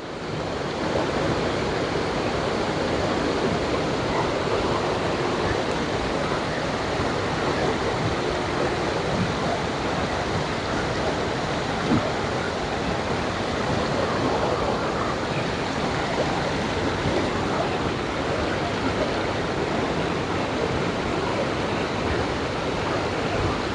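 Waterfall: water pouring and splashing down into a pool, a steady, loud rush.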